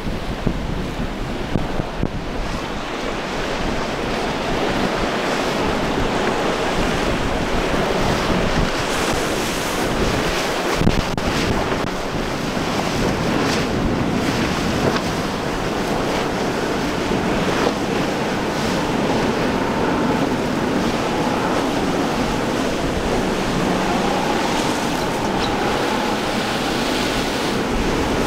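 Waves crashing and wind buffeting the microphone, with splashes from about a third of the way in. Under them runs the boat's Evinrude 200 HP outboard motor, taking a Mako center-console through the breaking chop.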